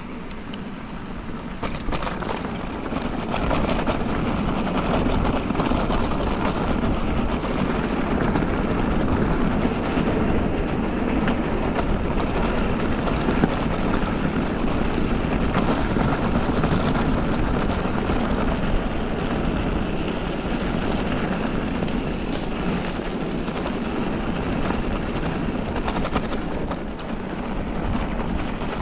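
Specialized Levo electric mountain bike riding over a rough trail: steady tyre and wind noise with frequent rattles and knocks from the bike, growing louder over the first few seconds.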